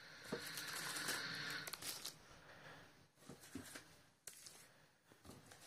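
Clear plastic sleeves of VCD cases crinkling and rustling as the discs are handled and turned over, loudest in the first two seconds, then quieter with a few light clicks and taps.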